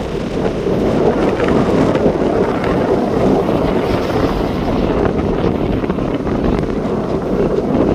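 Sea waves breaking on a beach, a loud steady wash with wind buffeting the microphone as a low rumble.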